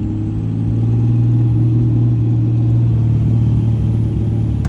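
Straight-piped 5.9-litre Cummins inline-six common-rail turbo diesel in a 2003 Dodge Ram 2500 pulling under light throttle while driving. Its exhaust note grows a little louder over the first second, then holds steady.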